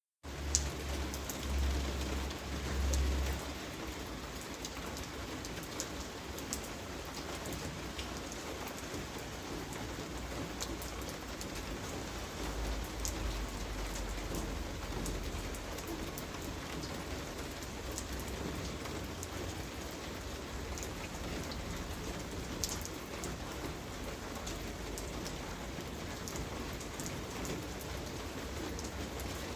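Steady rain falling in a backyard, with individual drops ticking sharply on surfaces. Brief low rumbles come near the start and again about 13 seconds in.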